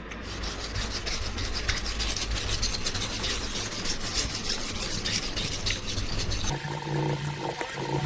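Steel knife blade being ground flat on a Naniwa Chosera 400 whetstone in repeated scraping strokes, thinning the blade behind the edge. Near the end the scraping gives way to a steadier low hum.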